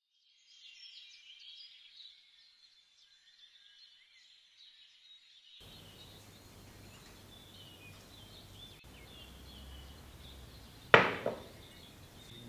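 Birds chirping steadily in the background. Near the end comes one sharp knock with a brief ring, as a glass measuring cup of water is set down on a table.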